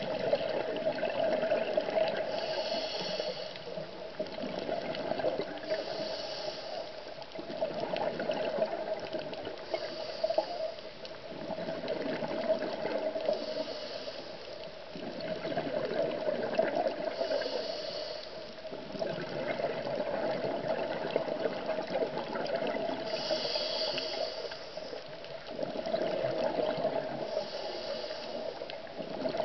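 Scuba diver breathing through a regulator: a short hiss on each inhale, then a longer gurgle of exhaled bubbles, repeating about every four seconds.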